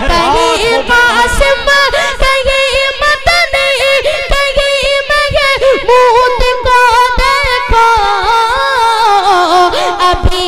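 A boy singing a naat unaccompanied into a microphone, holding long notes that waver and bend up and down in ornamented runs, with the line sinking lower near the end.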